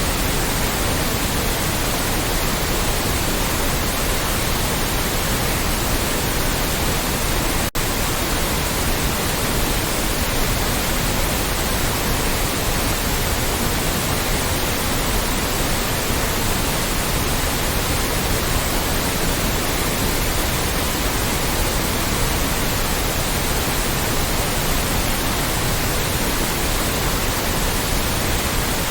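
Loud, steady white noise: an even hiss spread across all pitches, with a momentary dropout about eight seconds in.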